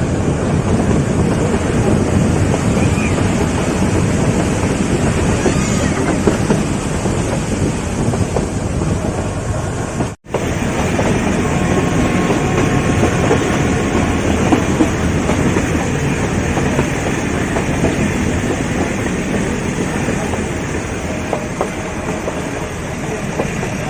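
Nilgiri Mountain Railway toy train running, a steady rumble with the clickety-clack of wheels over the rails. It cuts out for an instant about ten seconds in.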